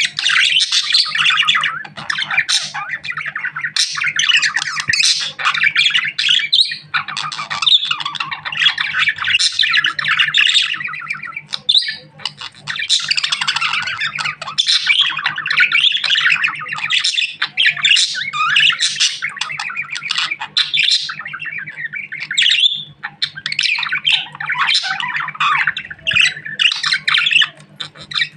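Budgerigar chattering and warbling continuously, a fast stream of chirps, squawks and clicks with only brief pauses. A steady low hum runs underneath.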